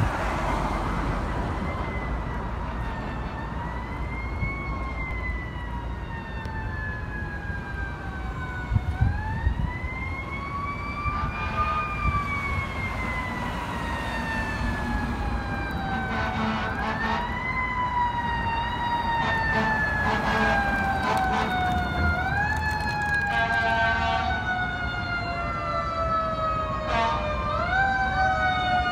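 Sirens of approaching emergency vehicles wailing in slow rising and falling sweeps, growing louder as they draw nearer. A few short loud blasts come about nine seconds in, and near the end more sirens overlap with quicker rises in pitch.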